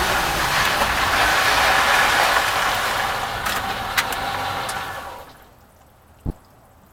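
2004 Chevy Silverado 1500 on the move: a steady road and tyre noise with a few sharp clicks a little past halfway. It fades out about five seconds in, and one short low thud follows near the end.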